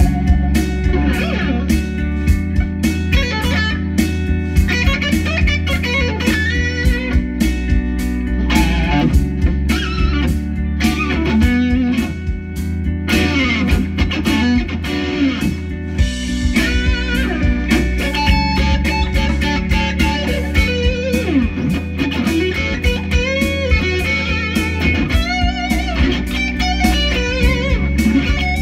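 Electric guitar playing quick single-note lead lines, with many notes bent up and down in pitch, over sustained low notes.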